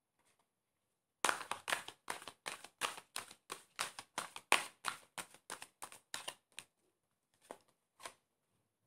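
Tarot cards slapping together in a hand shuffle: a quick run of short slaps, about four or five a second, stopping after about five seconds, then two single slaps near the end.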